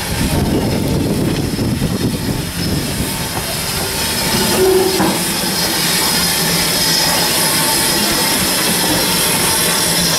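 A train running along the track: a steady rumble of wheels on rail with clickety-clack, and a thin wheel squeal over it.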